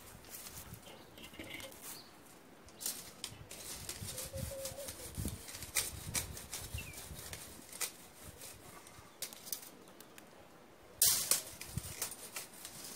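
Irregular clicks and scrapes of a wire braai grid being worked over with a long-handled tool, with one louder metal clatter near the end.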